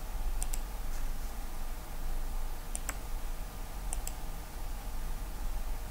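Computer mouse button clicking three times over about four seconds, each a quick double click of press and release, as the three points of an arc are placed in CAD software. A low steady hum runs underneath.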